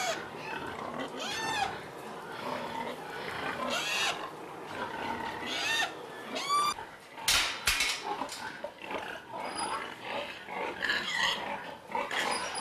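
Pigs grunting, with several short high calls, and two sharp knocks a little past halfway.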